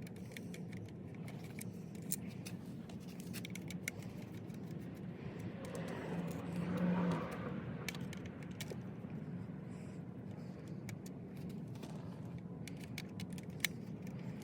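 Small scattered clicks and light rattles of a screwdriver and loose screws and plastic trim parts as the screws holding the power window switch panel come out, over a steady low hum. A broader swell of noise rises and fades about six to seven seconds in.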